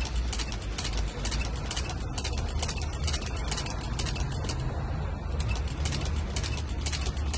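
Long-arm shoe-patching sewing machine stitching a sneaker: a fast, even run of needle-stroke clicks, about five a second, stopping briefly a little past the middle and then starting again, over a steady low rumble.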